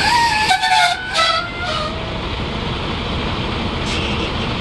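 Semi-truck tractor's diesel engine running as the tractor is moved to slide the fifth wheel, with a brief high squeal in the first two seconds and a short hiss near the end.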